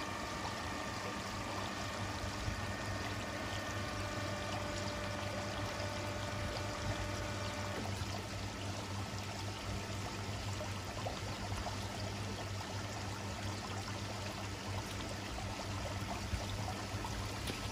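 Steady running and trickling water from a koi pond's filter system over a low electrical hum. A higher mechanical whine from the hydraulic roof lift runs alongside it and cuts off about eight seconds in.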